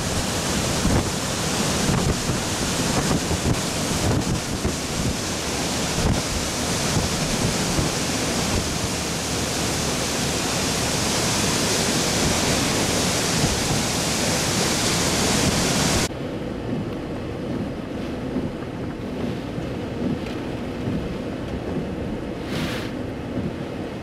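Hurricane eyewall wind with driving rain: a loud, constant rush of noise, the wind buffeting the microphone. About 16 seconds in it cuts abruptly to a duller, quieter wind noise.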